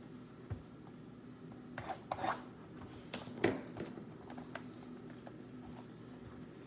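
Trading card packs being handled and torn open: a few short scraping rustles of the wrapper about two seconds in, with a soft thump early and a sharper tap a little later, then light ticks as the cards are handled.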